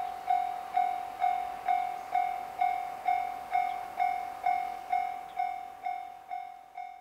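Railway level-crossing warning bell ringing steadily, about two strikes a second, each strike sharp then dying away. It fades out near the end.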